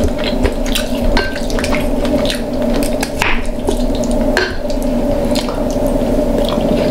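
Close-miked eating of king crab claws: wet chewing and smacking with many scattered sharp clicks, over a steady low background hum.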